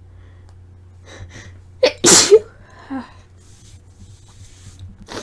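A woman's induced sneeze: a couple of short breaths in, then one loud sneeze about two seconds in.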